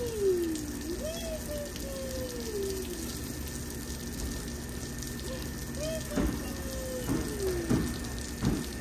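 Water hissing steadily from a whale-shaped sprinkler toy's thin jets onto wet concrete. A small child's voice makes a few long, falling drawn-out sounds over it, with a few short splashy knocks near the end.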